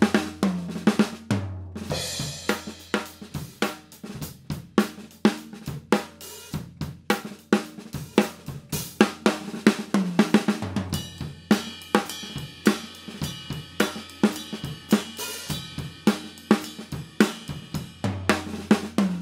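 Yamaha drum kit played in a steady groove of kick, snare, hi-hat and cymbal crashes. Heard through a coincident XY pair of Neumann KM 84 overhead mics at medium height, centred over the kick drum.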